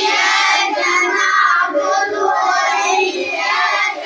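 A crowd of listeners calling out together in approval between verses of a live Quran recitation, many voices overlapping.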